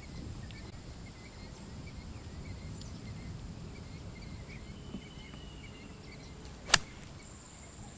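Pitching wedge striking a golf ball off the fairway: one sharp, crisp click near the end. Under it, wind rumbles on the microphone and a steady high insect drone with small chirps carries on.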